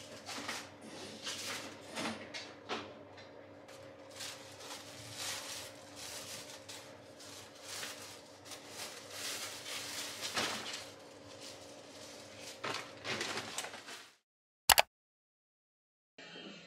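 Irregular small knocks and clatters of objects being handled, over a steady low hum. About fourteen seconds in the sound cuts to dead silence, broken once by a single sharp click.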